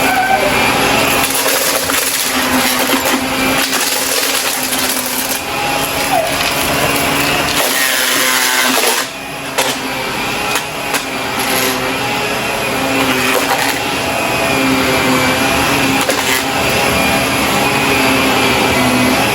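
Shark vacuum cleaner running steadily, with crunching and crackling as debris is sucked up; its level drops briefly about nine seconds in.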